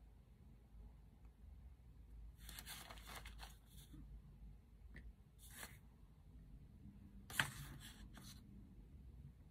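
Hands handling a paper cup and small candle-topping pieces: three short bursts of rustling and crunching, with one sharp click about three-quarters of the way in.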